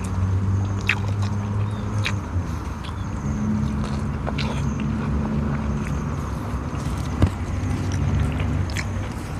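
Someone eating by hand: a few short clicks of biting and chewing over a steady low drone like a running motor.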